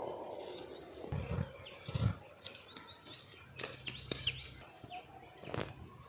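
Small birds chirping in quick, short calls throughout. Two dull low thuds come a little after one second and at two seconds in, and a sharp knock comes near the end.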